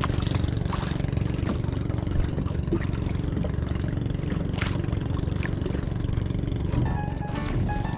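A small boat's engine running steadily at an even pace, a constant low drone with no change in speed.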